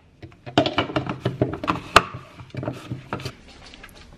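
Irregular taps, clicks and knocks of kitchen items being handled: a spice jar and a plastic blender cup being set down and moved about on the counter.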